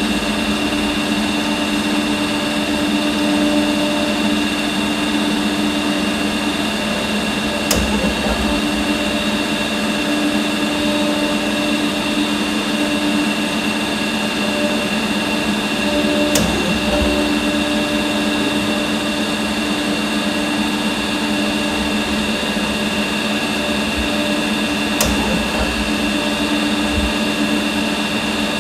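Electro-discharge machine running steadily, a machine hum with several fixed tones, broken by a short sharp click three times, about every eight to nine seconds.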